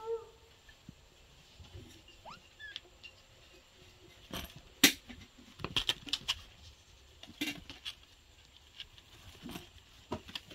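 Kittens wrestling and pouncing on a fabric-and-mesh playpen mat: scattered scrabbling, patting and light knocks of paws and bodies on the mat, with the sharpest knock about five seconds in and a quick flurry just after.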